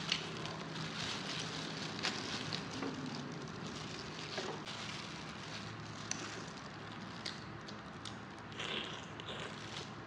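Close-up eating sounds: chewing and handling boiled chicken, with scattered small clicks and crackles.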